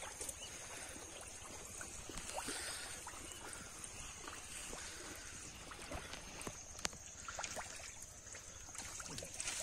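Faint sloshing and small splashes of hands groping through shallow, muddy water, with scattered light clicks.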